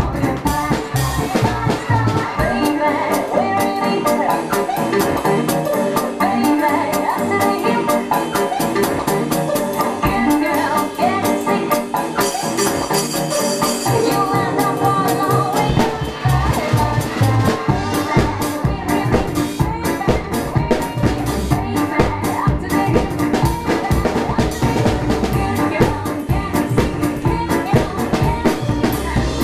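Drum kit played along to an electro swing backing track, with fast, steady snare and cymbal strokes over the recording. The deep bass of the track drops out a few seconds in and returns a little past halfway.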